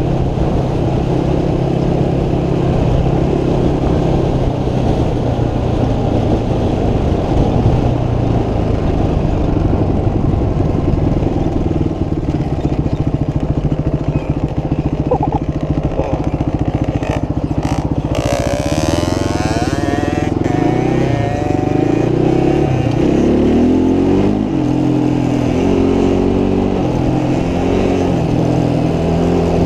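Motorcycle engine running loudly while riding, steady for the first half, then its pitch rising and falling repeatedly with the throttle in the second half, with a brief hiss of wind about eighteen seconds in.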